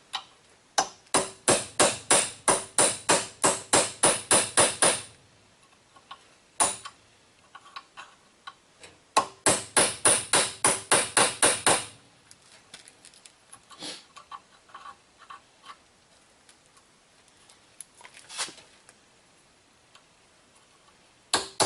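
Hammer blows on metal in fast runs of about four a second, with a light ring: knocking the old rusted brake caliper bolt boot and its metal collar out of its hole. Two long runs are broken by a few single knocks, and another run starts at the very end.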